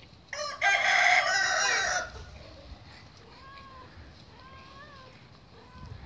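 A rooster crows once, loud, starting about half a second in and lasting under two seconds. A few faint short calls follow later.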